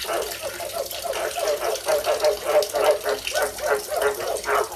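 Frogs calling, short croaking notes repeated in quick succession, several a second without a break.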